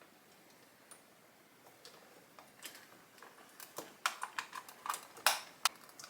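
Scattered light clicks and taps from a computer keyboard and its USB cable being handled and plugged into a KVM switch, sparse at first and coming quicker over the last two seconds or so.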